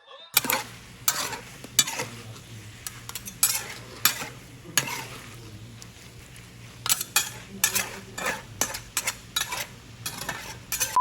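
Food frying in a hot pan, sizzling steadily with frequent sharp, irregular pops and crackles.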